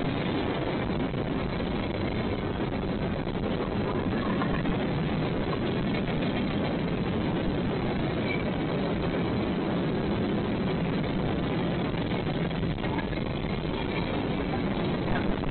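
A train passing with a steady, even noise of wheels on rails and no horn.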